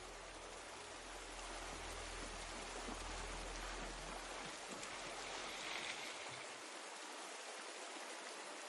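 River water rushing steadily over a fast, narrow stretch of river. Low held music tones sound under it and fade out about two-thirds of the way through.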